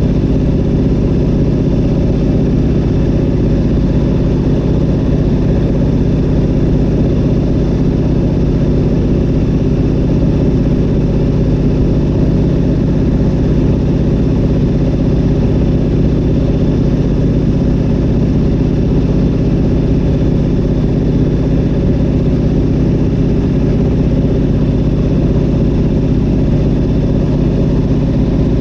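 Zlin Z-37A-2's nine-cylinder M-462 RF radial engine and propeller running steadily in flight, heard from inside the cockpit.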